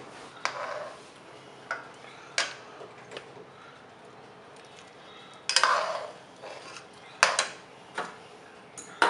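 Scattered clinks and knocks of a metal slotted spoon and small bowls against a kadhai as chopped tomatoes and green chillies are tipped into the simmering sauce. The loudest knocks come a little past halfway and about a second and a half later.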